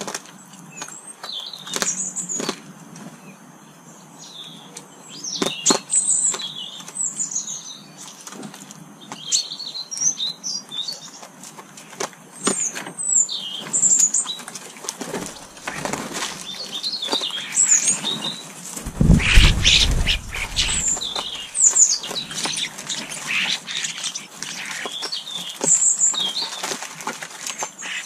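Garden birds at a feeder: many short high chirps and calls, with wings flapping as birds come and go. A brief low rumble stands out about two-thirds of the way through.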